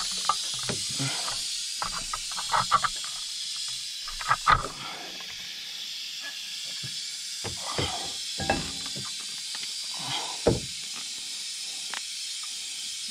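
Scattered light clicks and knocks of metal parts being handled as a brake hose fitting is threaded into a Brembo four-piston brake caliper, over a steady high hiss.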